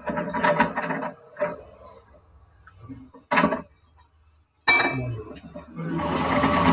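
Metal parts and tools clinking and knocking as they are handled, in a few separate sharp hits. Near the end a lathe motor starts and runs up to a steady hum.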